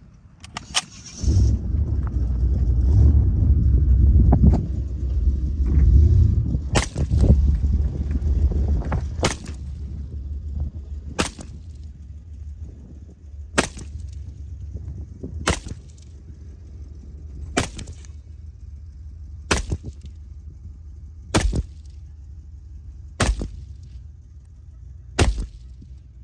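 SKS rifle (7.62×39 mm) firing single shots at a steady pace, about one every two seconds, some ten shots in all. A loud low rumble, like wind on the microphone, fills the first third.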